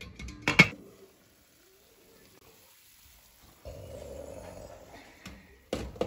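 Glass pot lid clinking against the rim of a cooking pot on the stove, once about half a second in and again near the end. In between, while the lid is off, the simmering pot gives a steady low hiss for about a second and a half.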